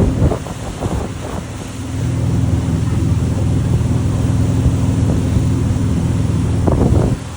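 Speedboat engine running under way, a steady low drone, with wind buffeting the microphone. The drone drops about a third of a second in and picks back up around two seconds in.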